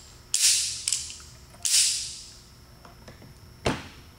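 The metal action of a non-firing Colt Single Action Army replica revolver being worked by hand: two rattling metallic clicks, each trailing off over about half a second, then one sharp single click near the end.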